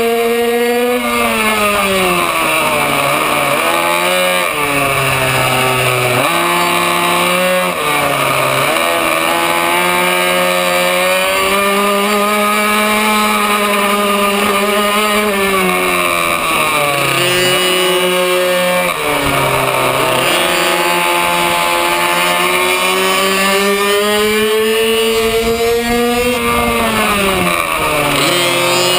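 Racing minibike engine heard on board at high revs, its pitch falling sharply as the rider shuts off for corners and climbing back under acceleration, several times over.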